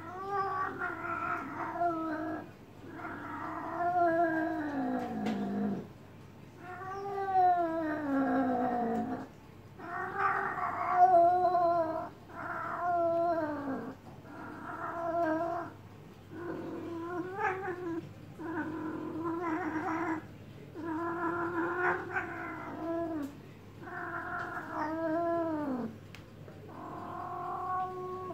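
Female calico cat in heat yowling: about a dozen long, drawn-out calls, one every two seconds or so, several sliding down in pitch at the end. It is the caterwaul of a cat in oestrus.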